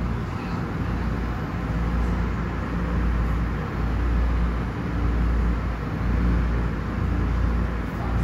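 Automatic tunnel car wash running: a steady rushing of spraying water and machinery over a deep, uneven rumble.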